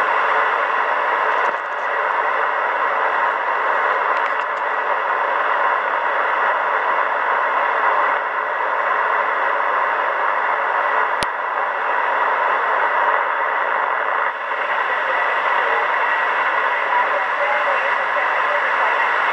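Kenwood R-2000 communications receiver's speaker giving a steady, narrow hiss of band static. One sharp click comes about eleven seconds in.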